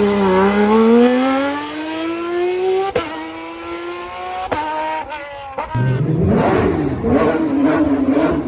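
Porsche flat-six engine accelerating, its pitch rising steadily, then upshifting about three seconds in and again twice in quick succession. From about six seconds in the engine comes back louder and rougher, its pitch wavering, with sharp cracks.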